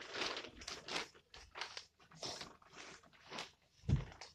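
Scuffing and rustling as a child moves about on top of a wooden bunk bed, then one heavy thud about four seconds in as he jumps down and lands on the floor.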